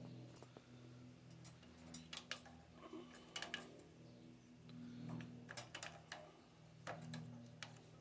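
A switched-on electric downdraft cooktop giving a faint steady electrical hum, with scattered light ticks.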